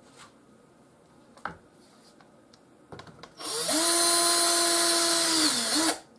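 Power drill drilling through the plastic rear fender of a dirt bike. A few light clicks and a knock come first; then, about three seconds in, the drill spins up to a loud, steady whine that sags in pitch just before it stops.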